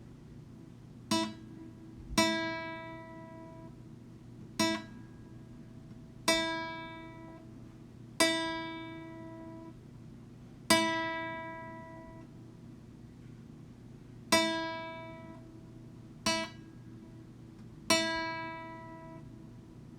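A plucked string instrument sounding the same single note nine times, some notes stopped short and others left to ring and fade, tapping out Morse code dots and dashes.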